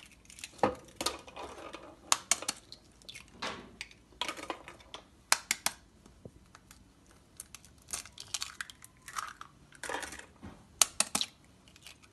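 Raw eggs being cracked and their shells broken open over a glass bowl, one after another: clusters of sharp taps and shell crunches.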